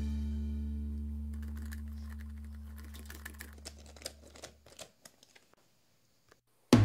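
A held chord of background music fades away while small, irregular clicks and ticks sound, the hand screwdriver driving small screws into the plywood back of a picture frame. Drum-kit music cuts in loudly near the end.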